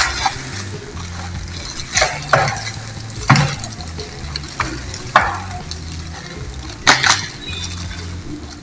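Plastic packaging film crinkling in short rustling bursts, about seven of them, as it is pulled off and handled.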